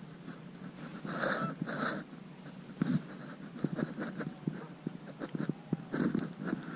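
Goose honks and a run of short, quick clucks: two loud honks about a second in, a scatter of clucks through the middle, and more honks near the end, as in goose calling to draw flying geese in to decoys.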